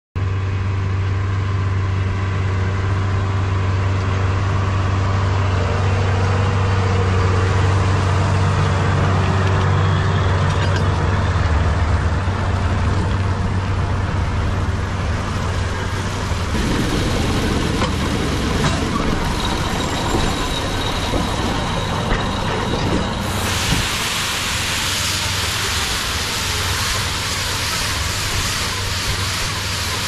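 New Holland tractor running steadily while working a McHale Fusion 4 round baler-wrapper in silage. A little past halfway the steady low engine hum gives way to a rougher, noisier machinery sound.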